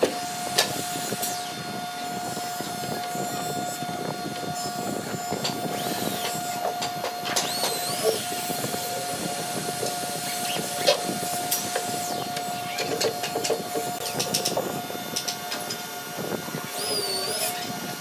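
Steady machine noise with a constant whine, broken by a few sharp knocks and a couple of brief high chirps.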